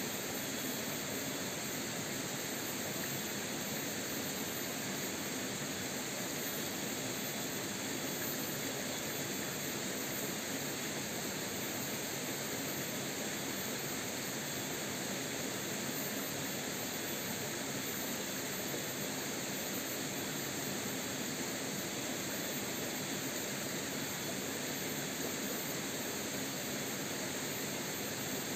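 Steady rush of flowing stream water over rocks, an even hiss without breaks.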